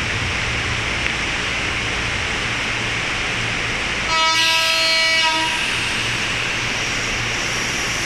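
Electric commuter train pulling out, with a steady rumble and hiss of the running train. About four seconds in, a single train horn blast sounds for about a second and a half.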